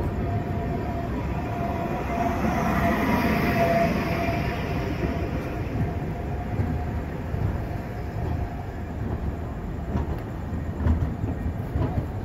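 A train rolling through a railway station, a steady rumble. A faint whine runs through the first few seconds, and a few sharp knocks come near the end.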